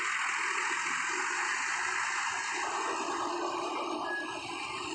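Hino coach driving slowly up a steel ferry ramp, its engine and running noise a steady rush with no breaks.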